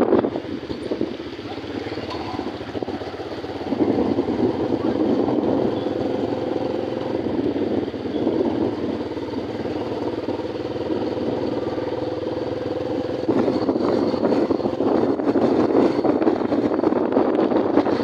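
Motorcycle engine running while riding along, with wind rushing over the microphone; the noise dips briefly near the start and swells again about four seconds in.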